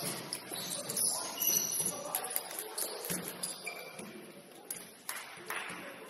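Basketball game in play: sneakers squeaking on the court in short high chirps, a few sharp thuds, and voices in the background.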